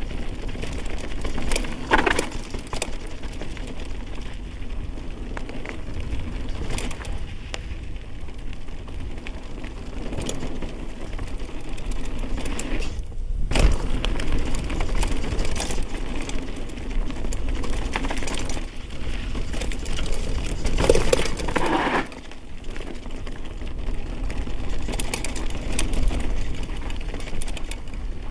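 Mountain bike descending a dirt singletrail: continuous rattling and tyre noise over the rough ground. Louder knocks stand out about two seconds in, around the middle and about three quarters through, as it goes over bumps and features.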